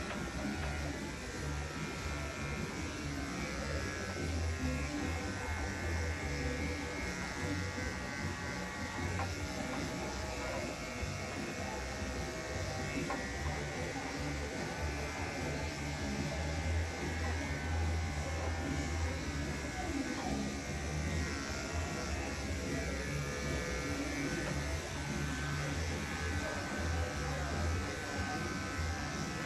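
Corded electric dog grooming clippers fitted with a #4 blade, running with a steady buzz as they clip a Labradoodle's coat.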